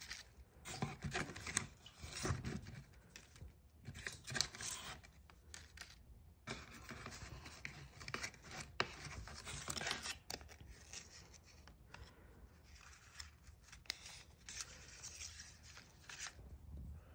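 Translucent glassine paper envelopes crinkling and rustling as they are handled, in irregular crackly bursts with short pauses between.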